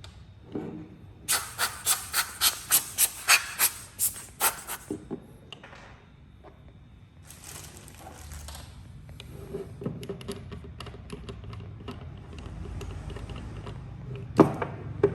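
Hand work on microscope parts. First comes a quick run of about a dozen sharp hissing puffs or clicks, roughly three a second. Then a short hiss, some lighter ticks, and two sharp knocks near the end.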